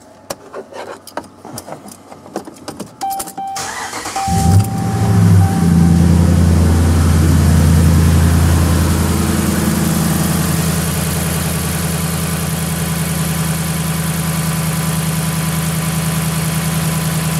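A few clicks, then the 5.7L Hemi V8 of a 2010 Dodge Ram 1500 starts about four seconds in. It runs at a raised idle before settling to a steady idle. It is running with the serpentine belt off, so the water pump is not turning; with the crunchy growl gone, the fault is put down to the water pump bearing.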